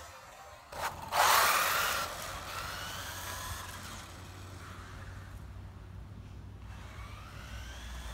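Electric motor of a Wltoys 144001 1:14 4WD RC car whining at high speed as it drives past, the pitch sliding down and fading away. Near the end its whine rises again as it comes back.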